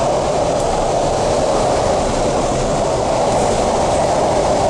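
MTR C-Train electric multiple unit running between stations, heard from inside the passenger car: a steady rolling rumble of wheels and running gear with a constant mid-pitched roar in it.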